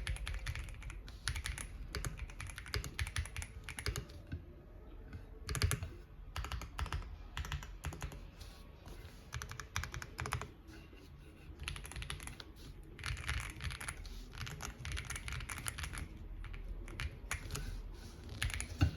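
Typing on a Xinmeng M71 aluminum-cased mechanical keyboard with TCC White Jade linear switches: quick runs of keystroke clicks that ease off briefly a few times before picking up again.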